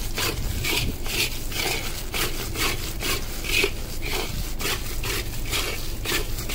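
Metal spatula scraping around a metal kadhai in quick repeated strokes, about two to three a second, stirring boiled sugar syrup as it dries and crystallizes into granular sugar.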